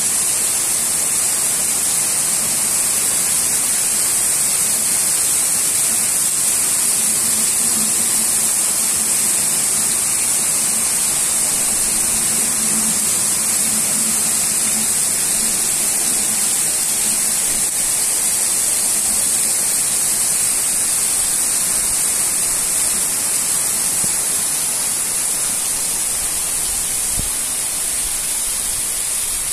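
Heavy rain falling steadily on roofs and the ground, a dense even hiss that eases slightly near the end.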